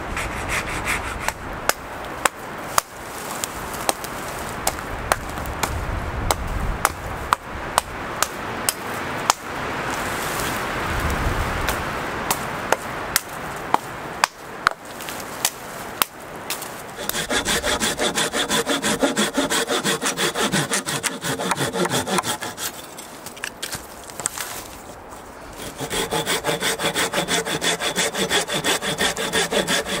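Dry twigs and branches snapping and cracking for about the first half. Then a hand-held folding saw cuts a dead log in steady back-and-forth strokes, stopping briefly and starting again.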